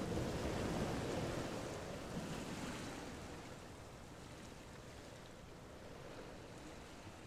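Wind rushing over the microphone, a steady hiss-like noise that fades after about two seconds.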